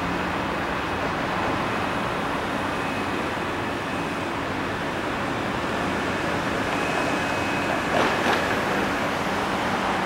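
Jet noise from a departing Boeing 777-200LR's twin GE90 turbofans at takeoff thrust: a steady rushing sound as the airliner climbs away. Two brief knocks come close together about eight seconds in.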